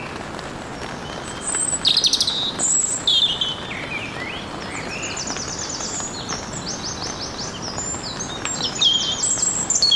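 Songbirds chirping and trilling over a steady background hiss. There are loud calls about two and three seconds in, then fast runs of repeated high notes through the second half.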